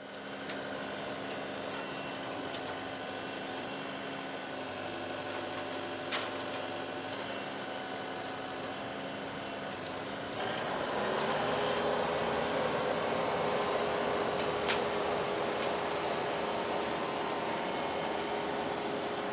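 TYM T654 tractor's diesel engine running steadily while its loader grapple works through brush. About ten seconds in the engine speeds up to a higher steady pitch and runs louder. Two short sharp cracks, one near six seconds in and one near fifteen.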